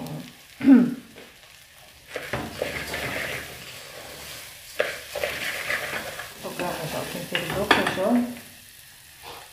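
A wooden spoon stirring raw rice that is sautéing in oil in an aluminium pot, with sizzling and the spoon scraping against the pot. There is a short, loud scrape under a second in. The stirring runs from about two seconds in until near the end. The rice is being toasted before the water goes in.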